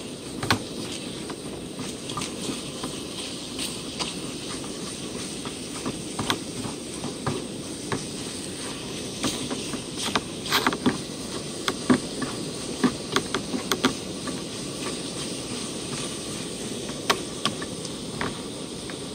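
Chicken pieces sizzling in a small frying pan on a gas-canister camp stove, with the burner hissing steadily. Frequent clicks and scrapes of a utensil against the pan as the meat is stirred, most of them in the middle of the stretch.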